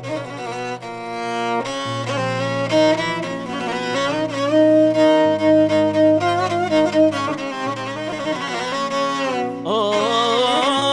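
Instrumental introduction of an Arabic song: a bowed-string melody over held low bass notes. Near the end the melody changes to a wavering line with strong vibrato.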